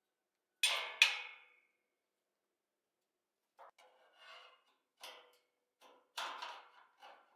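Sharp metal knocks in a workshop: two loud ringing strikes about half a second apart, then, after a pause, a run of lighter knocks and scrapes, like steel parts being struck or handled.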